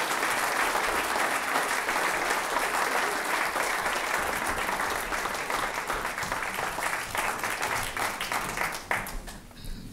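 Congregation applauding: dense clapping that thins out into scattered claps and fades near the end.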